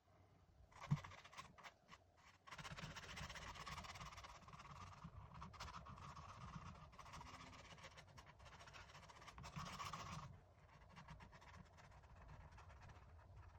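Faint scratching of a paintbrush working oil paint on canvas, with a few light taps near the start.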